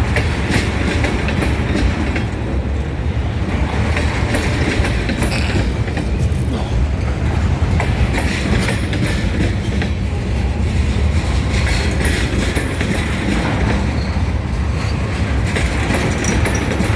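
Union Pacific freight train's cars rolling past: a steady low rumble of steel wheels on rail, with irregular clacks over the rail joints.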